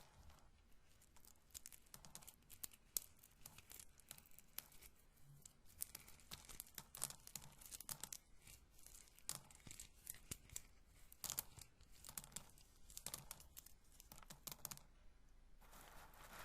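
Roasted corn kernels handled and rubbed together close to the microphone: faint, irregular dry crackles and small clicks, bunching into quick flurries now and then.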